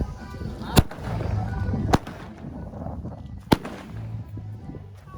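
Firecrackers going off: three sharp bangs, irregularly spaced about a second or more apart.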